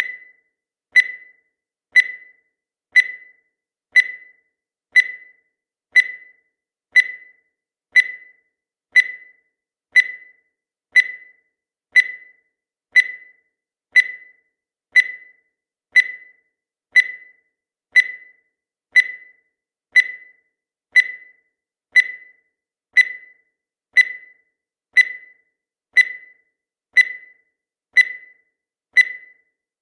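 Countdown timer's tick sound effect: one short, high tick every second, each dying away quickly, evenly spaced.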